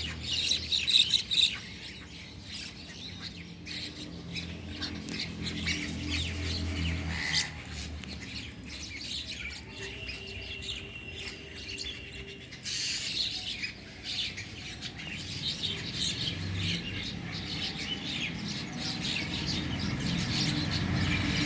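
Small birds chirping and twittering, many short calls overlapping without a break, over a low steady rumble.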